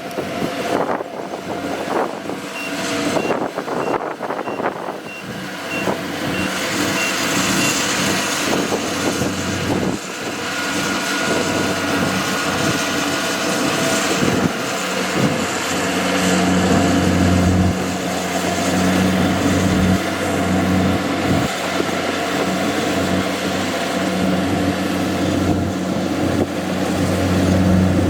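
Kubota DC-70G PRO combine harvester's diesel engine running under way, with a row of evenly spaced high beeps for the first several seconds. The engine hum grows louder and heavier about halfway through.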